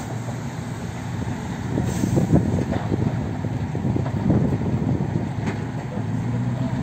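Fire engine's motor running steadily with a low, even drone, driving the pump that feeds the hose. Irregular rustling and crackling lies over it and is loudest from about two to four and a half seconds in.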